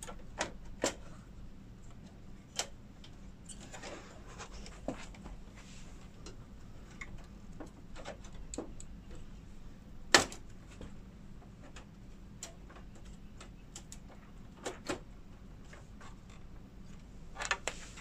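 Scattered clicks and knocks of a graphics card, an EVGA GeForce RTX 3080 Ti, being pressed into its PCIe slot and its bracket fitted into the workstation case. The sharpest knock comes about ten seconds in, with pairs of clicks near the end.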